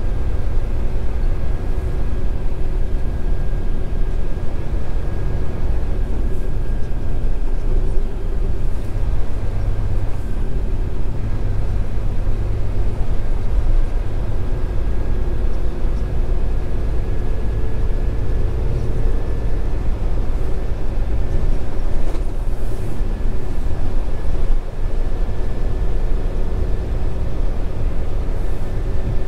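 Scania R410 truck's 13-litre six-cylinder diesel engine running under way with road noise: a steady low drone with a faint, even whine above it.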